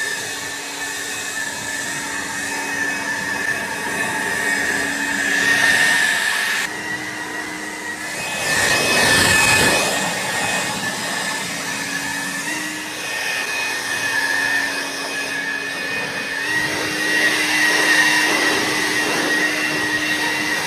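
Bandsaw sawmill running under power, its engine revving up at the start and then holding a steady high whine over the rush of the blade cutting through a pine log. There are several abrupt small changes in pitch.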